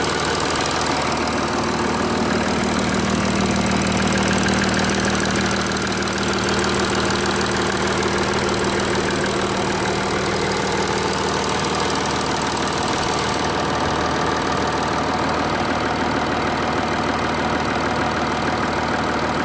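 Engine idling steadily with a rattling clatter, the rattle being the sound in question.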